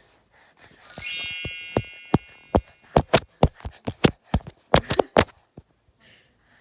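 A single bright metallic ding, like a small bell or chime struck once, rings out and fades over a second or two. It is followed by a quick, irregular run of sharp clicks and taps.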